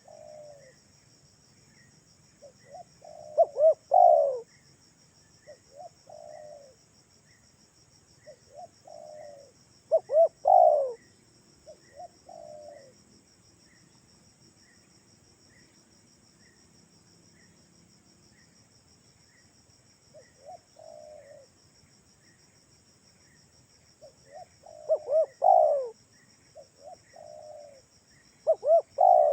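Spotted dove (tekukur) cooing in repeated phrases, with loud groups of coos four times and softer phrases between. Behind them runs a steady high trill of insects and a faint regular chirp about twice a second.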